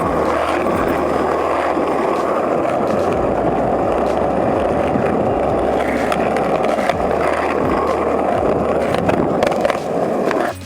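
Skateboard wheels rolling steadily on pavement, with scattered clicks along the way. The sound cuts off suddenly at the end.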